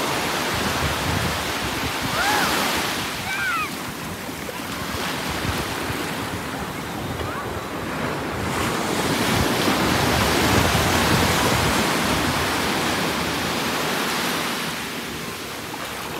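Ocean surf washing up the beach, with wind buffeting the microphone: a steady rushing noise that swells around ten seconds in. A couple of brief high cries sound about two and three and a half seconds in.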